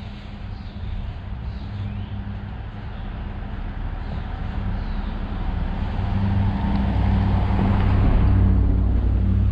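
A motor vehicle's engine hum, steady and low, growing louder over the second half and at its loudest near the end.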